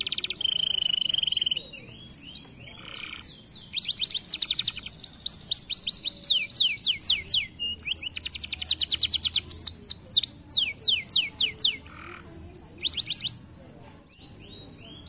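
Domestic canary singing: long fast trills of quick sweeping notes, with a short held whistle near the start, breaking off briefly a few times and going quiet near the end.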